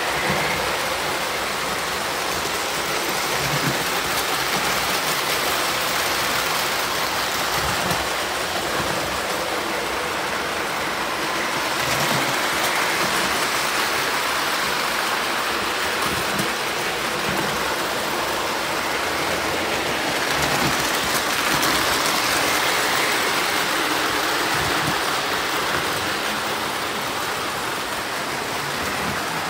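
Standard gauge and O gauge electric toy trains running around metal track loops: a steady rushing rumble of wheels on tinplate rail, swelling a little a couple of times.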